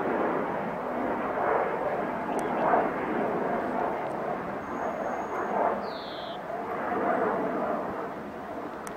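Steady outdoor rushing noise that swells and fades, with one short falling high-pitched chirp about six seconds in.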